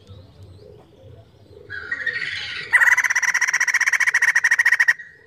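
White-crested laughingthrush calling: a louder call about two seconds in, then a loud, rapid chattering rattle of about two seconds that stops abruptly.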